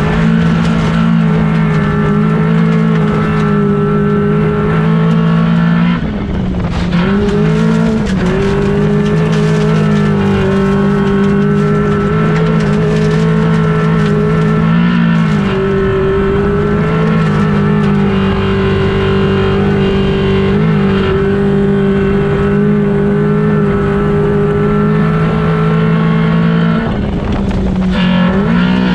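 Race car engine heard from inside the cockpit, running hard at a steady high pitch through most of the stretch. The note dips briefly about six seconds in, again around fifteen seconds, and near the end before picking up again.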